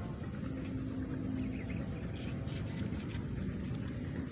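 Steady low outdoor rumble, like a distant engine, with a held low hum from about half a second in that stops a little over a second later. Faint short high chirps come in the second half.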